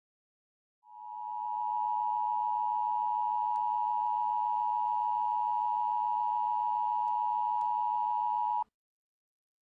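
Emergency Alert System attention tone: one steady, unchanging tone lasting about eight seconds. It starts about a second in and cuts off abruptly.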